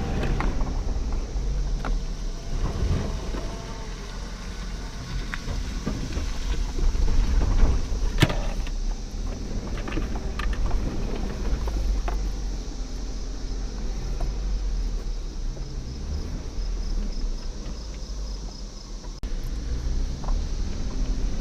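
Off-road 4x4 engine running at low speed under load, with a steady low rumble and scattered sharp knocks; the loudest knock comes about eight seconds in.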